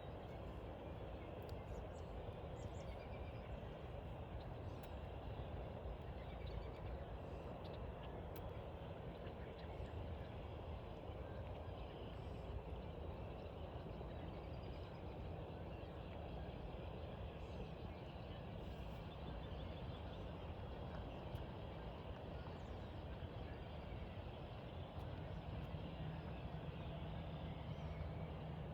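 Outdoor ambience: a steady low rumble, with faint, scattered short bird calls above it.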